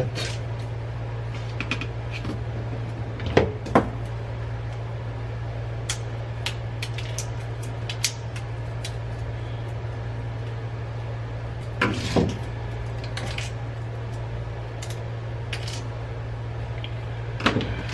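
Scattered clicks, snaps and knocks of plastic fluorescent lamp holders being pried apart with pliers and a screwdriver, with small clusters about three and a half seconds in and about twelve seconds in. A steady low hum runs underneath.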